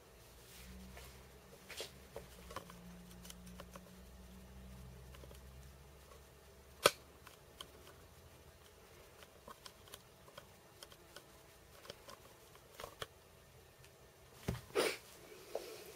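Scattered small clicks and taps with a faint low hum, one sharp click about seven seconds in and a short cluster of knocks near the end.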